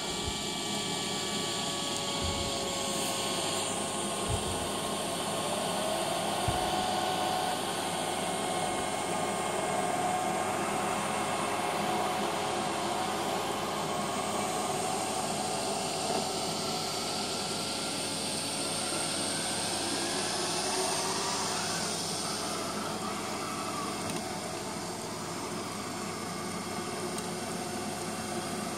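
Neato robot vacuum running across carpet in spot-cleaning mode, its motors giving a steady whirring hum, with a few faint knocks in the first several seconds.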